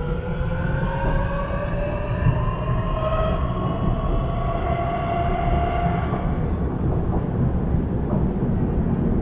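Beijing Subway Line 15 train heard from inside the car while running between stations: a steady low rumble of wheels on track, with an electric motor whine climbing in pitch as the train gathers speed. The whine fades out about six seconds in, leaving only the rumble.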